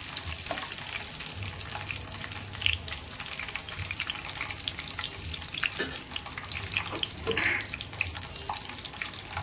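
Whole spices (bay leaves, cinnamon, star anise, cloves, cumin) sizzling in hot oil in a metal kadhai, a steady crackle with scattered sharper pops. The spices are being fried until light brown as the first tempering of a masala.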